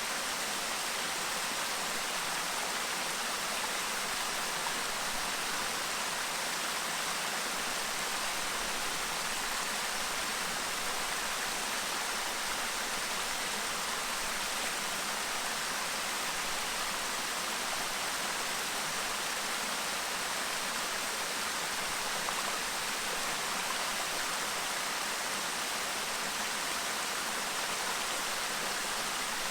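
Clear stream babbling: a steady, unbroken rush of running water.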